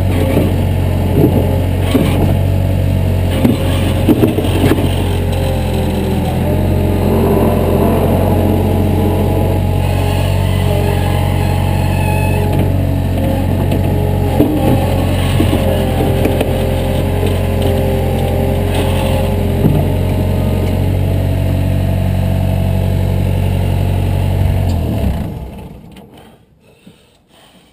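Heavy earthmoving machine's engine running steadily under work, with scattered clanks and knocks of metal, then winding down and stopping about 25 seconds in.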